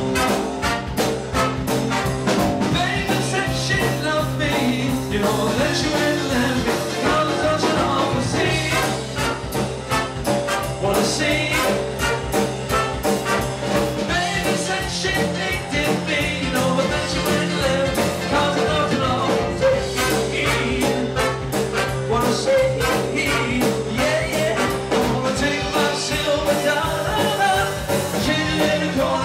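Live rock band with a horn section playing at a steady beat: drum kit, electric guitar, keyboard and trumpets and saxophone, with a lead singer over them.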